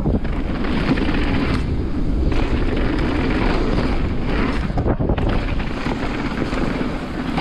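Wind buffeting the microphone during a fast mountain-bike trail descent, over a steady low rumble of the ride.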